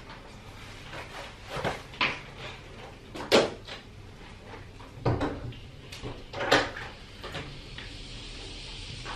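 Several sharp knocks and clicks in a small entryway as shoes are pulled on and the front door's latch is worked and the door opened; the loudest knock comes about a third of the way in. Near the end a steady outside hiss comes in through the opening door.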